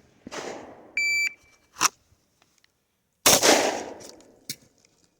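A shot timer gives its short, high start beep about a second in. About two seconds later a single 9mm Glock 19 pistol shot cracks loudly and rings out. Smaller clicks and a dull rustle come before and after it.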